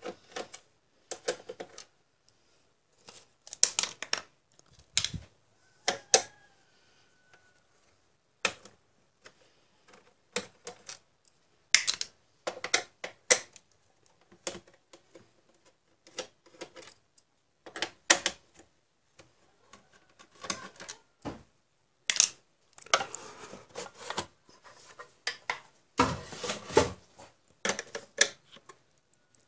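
Irregular clicks, taps and clinks of a screwdriver and small screws on the plastic back cover of a Hanns-G HW173a LCD monitor as it is unscrewed, with screws dropped into a glass dish. The clicks come in uneven clusters and are densest near the end.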